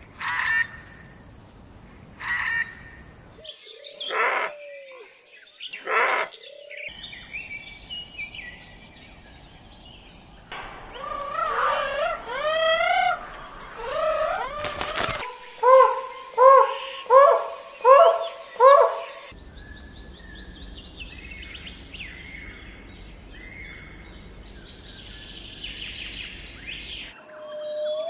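Calls and songs of several different birds, switching abruptly every few seconds: short chirps, a warbling song with gliding notes, then a run of six loud, evenly spaced calls, then softer chirping.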